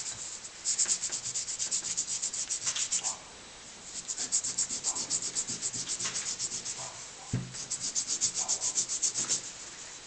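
An old miner's lamp being rubbed and polished by hand: quick back-and-forth scrubbing strokes, about five or six a second, stopping briefly a few times. A single dull knock about seven seconds in.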